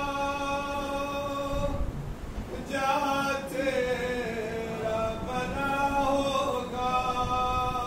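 A man's voice chanting a nauha, a mournful lament, unaccompanied: long held notes with a wavering, gliding phrase in the middle. About two seconds in there is a brief low rumble of the microphone being handled.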